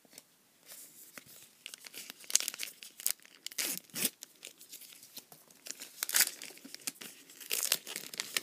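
Foil wrapper of a trading card pack being torn open and crinkled by hand, in a run of irregular crackling tears with several louder rips.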